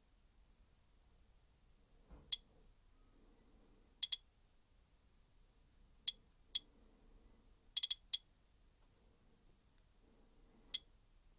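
Sharp, short clicks at irregular intervals, some in quick clusters of two to four, as menu options are tapped on the DJI Osmo Action 5 Pro's touchscreen.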